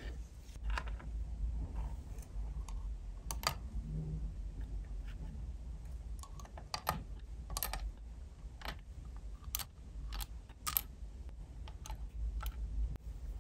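Light, scattered clicks and taps of small metal tweezers against a tiny glass jar as jelly sweets are dropped in one at a time, with small knife taps on a plastic cutting board near the start. A steady low rumble runs underneath.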